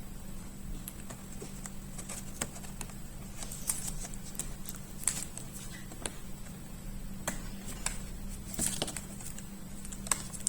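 Scattered light clicks and taps of hands handling the open laptop, putting the battery plug back onto the motherboard, over a steady low hum.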